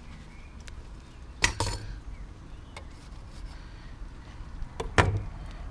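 Two sharp clinks of a metal utensil striking a slate serving board, about a second and a half in and again near the end.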